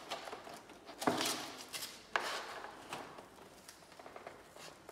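Velcro strap being pulled through and pressed down over a plastic fuel tank: a few short scratchy rasps and rubs, the clearest about one and two seconds in.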